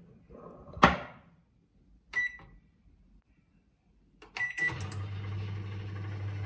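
A sharp knock, then short electronic beeps from a microwave convection oven's keypad as it is set, one and then another a couple of seconds later. The oven then starts running with a steady low hum as it begins preheating.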